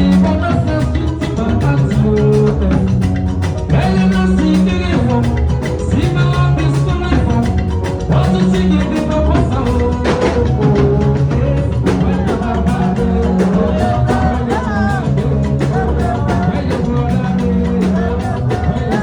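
Music with singing over a steady percussive beat and a strong, repeating bass line, in a Latin dance style.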